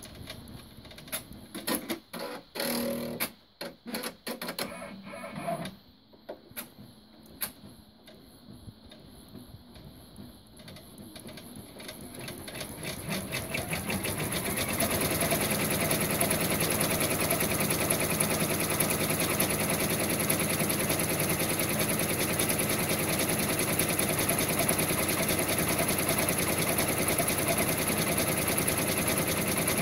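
Brother PR1050X multi-needle embroidery machine stitching letters into felt. For the first dozen seconds there are only scattered clicks and short mechanical noises as it moves on from one letter to the next. It then starts stitching again, speeding up over a few seconds into a steady, fast, even rhythm of needle strokes.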